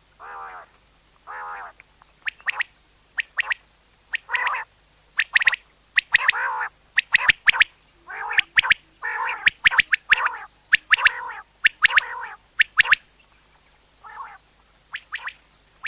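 Common quail calling: repeated short, sharp notes in quick groups of two or three, mixed with a few longer, wavering lower notes. The calls pause briefly near the end, then start again faintly.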